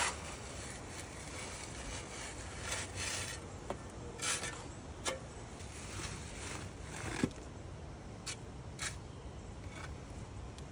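Shovel scraping and working wet concrete mix into a garden border form: a series of short, irregular scrapes about once a second.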